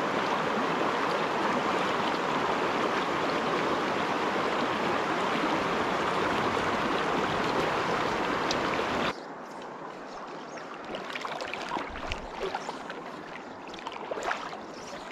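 Shallow rocky stream rushing loudly over a riffle in a steady wash. About nine seconds in it drops suddenly to a much quieter, gentler flow with faint scattered ticks and small splashes.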